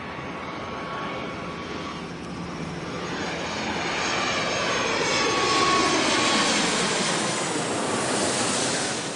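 Jet airplane flying over: a broad engine rush that cuts in suddenly and swells louder, with sweeping tones falling in pitch as it passes, loudest past the middle and easing slightly near the end.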